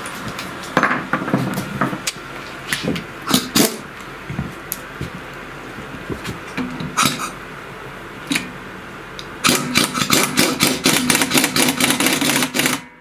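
Impact wrench hammering rapidly for about three seconds as it runs down the bolt holding the clutch release bearing on a walk-behind tractor's gearbox shaft, stopping abruptly. Before it come scattered clicks and knocks of metal parts and tools being handled.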